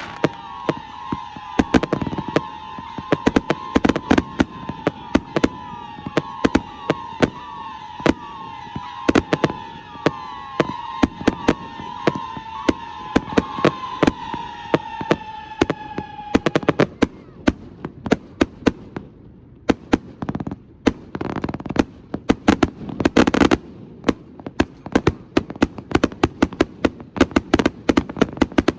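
Astroboy consumer fireworks going off in a finale: a rapid, dense run of bangs, with a wavering continuous whistle that cuts off about two-thirds of the way through. After that the bangs go on, with a couple of longer crackling bursts.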